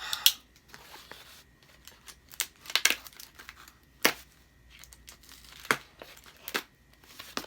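Heavily taped mail package being cut and torn open: crinkling packaging with about half a dozen sharp, short rips of tape spread through.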